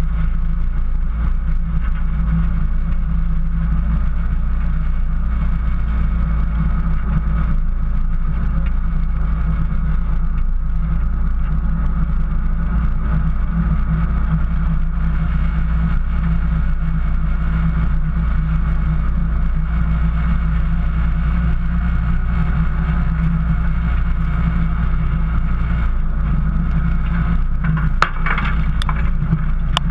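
4x4's engine running at a steady low drone with tyre and driveline noise as it crawls through snow, heard from a camera on the hood. Near the end, snow-laden branches sweep across the hood with a few brief scraping crackles.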